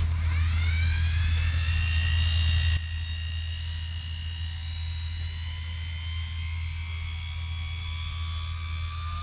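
INGCO mini die grinder (rotary tool) switched on: its small motor whine rises quickly in pitch over about two seconds as it spins up, then runs at a steady high speed.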